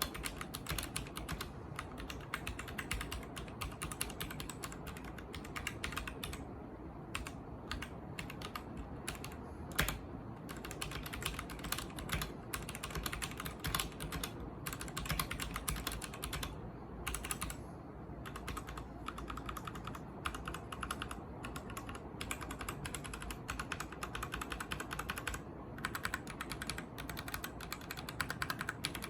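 Royal Kludge RK71 mechanical keyboard with red linear switches being typed on steadily and fast, keystrokes clacking in a dense stream with a few brief pauses and one louder strike about ten seconds in.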